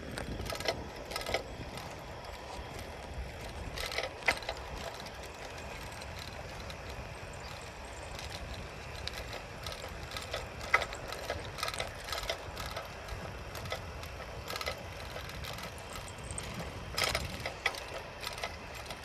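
Bicycle ride noise: a steady low rumble of wind and tyres, with scattered clicks and rattles from the bike at irregular moments, a cluster about four seconds in and again near the end.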